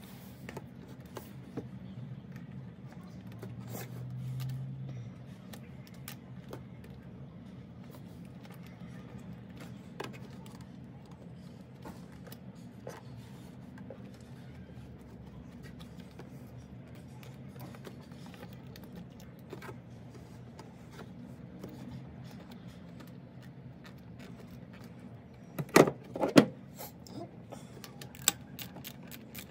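Small metal clicks and taps of bolts being threaded by hand into a thermostat housing. Two loud, sharp knocks come late on, then a hand ratchet starts clicking quickly at the very end.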